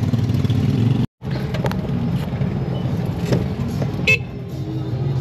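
Steady low drone of a motor tricycle running, heard from inside the sidecar cab. The sound drops out for an instant about a second in, then carries on, with a brief high-pitched squeak about four seconds in.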